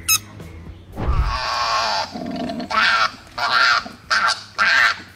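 Koalas giving a run of short, harsh, loud calls, about two a second, after one longer rough call about a second in, as two adults scuffle on a tree trunk.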